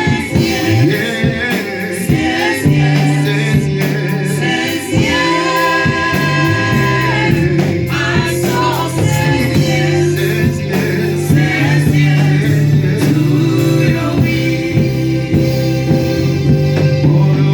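Gospel music: a choir singing over instrumental backing with steady held bass notes.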